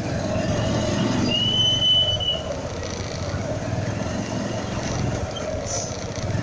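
Motorcycle engine running at a crawl amid street traffic noise, with a single high squeal about a second long a little after the start.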